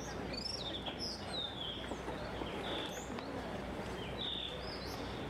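Birds chirping: a string of short, high calls that sweep downward, several overlapping, over a steady low background hum.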